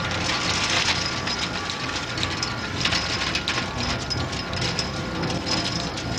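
Chain-link fence rattling and clinking under the climbers' weight, with many irregular short clicks and rattles over a steady rushing background.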